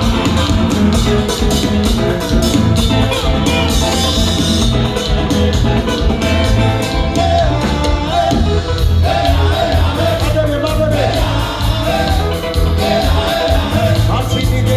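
Haitian konpa band playing live with a steady beat, a singer's voice coming in about halfway through.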